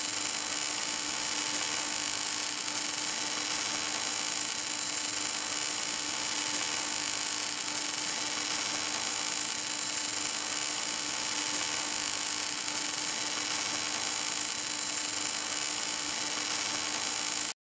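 Gas-shielded wire-feed welding arc from an automatic pipe welding tractor burning steadily as it runs along the pipe joint. It makes an even, hissing, crackling noise over a constant low hum, and it cuts off suddenly near the end.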